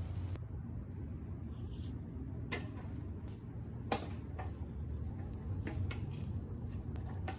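A few short, sharp clicks and knocks of objects being handled in a kitchen, over a steady low hum.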